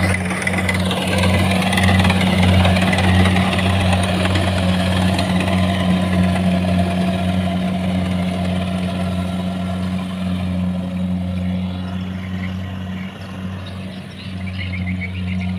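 Kubota rice combine harvester working in the field: its diesel engine runs with a steady hum under mechanical noise from the cutting and threshing gear, getting somewhat quieter in the second half as the machine moves away.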